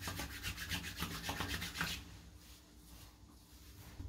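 Hands rubbing moisturizer into the skin of the face: a quick run of rubbing strokes for about two seconds, then fainter.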